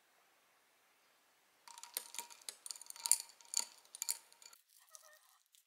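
Thin metal stirrer swirled in a stemmed glass of layered latte, clinking against the glass several times over the glass's faint ring. A few lighter clinks follow near the end.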